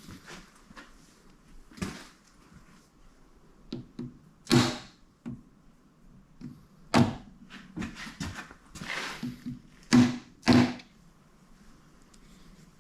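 Metal engine parts clunking and knocking as a John Deere 115.5 engine is torn down: a string of irregular knocks, the loudest about halfway through and twice near the end, half a second apart.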